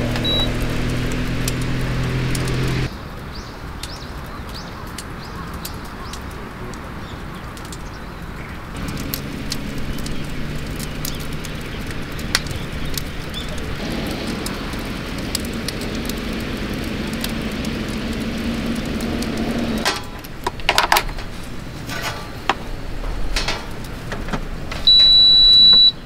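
Electronic appliance beeps over a steady outdoor background. A short high beep sounds just after the start as a rice cooker's button is pressed. A few clicks of handling follow later. Near the end comes a loud, steady high beep about a second long, from an induction cooktop being switched on.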